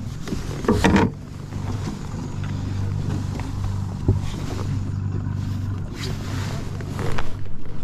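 A steady low hum under water and handling noise on a fishing kayak while a mullet is being brought in, with sharp loud knocks about a second in, around four seconds and again near the end.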